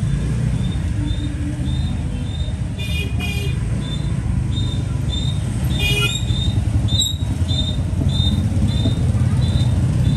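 Street traffic noise: a steady low rumble with two short horn toots, about three and six seconds in, and a faint high beep repeating about twice a second.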